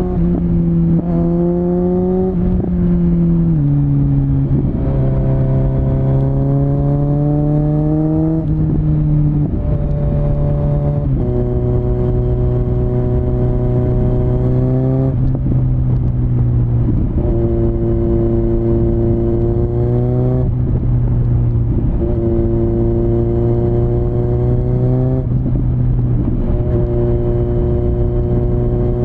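Kawasaki Z900's inline-four engine through a LeoVince LV10 slip-on exhaust, heard on board while riding: a deep, bassy exhaust note that climbs slowly in pitch and drops back sharply several times.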